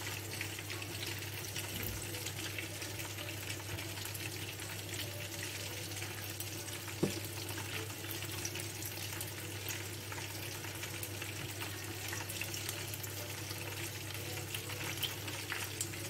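Steady hiss with a low hum underneath, and a single sharp click about seven seconds in.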